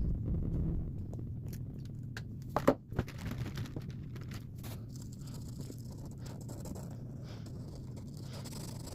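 Drawing strokes scratching on paper, a run of small scrapes, with one brief louder sound about two and a half seconds in.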